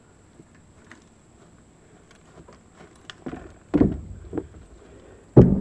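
Mountain bike rolling up onto a wooden deck: a few faint clicks, then a rumble and heavy thuds of the tyres and frame on the boards, about four seconds in and again louder near the end.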